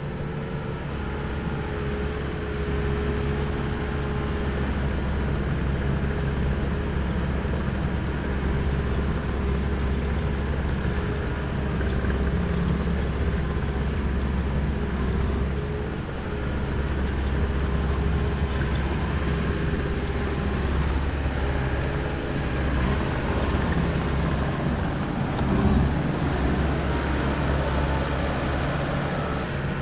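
Skid steer engine running steadily as the machine is driven, with small rises and falls in engine speed.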